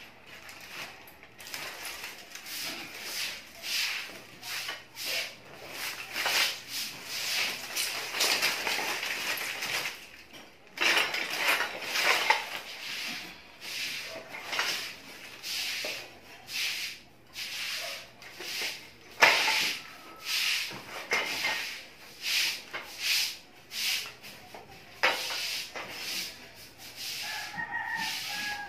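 Copper winding wire being pulled, bent and stripped by hand out of a scrapped welding machine's transformer. It makes irregular scraping and rustling, with scattered sharp metallic clicks.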